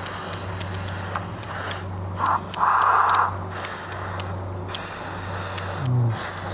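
Aerosol cleaner spraying onto an outboard's fuel filter element and water-separator bowl to flush out water: a steady hiss with several short breaks between bursts.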